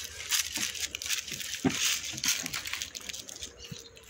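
Cattle eating dry feed ration out of a plastic tub, with irregular crunching and rustling as they chew and nose through it.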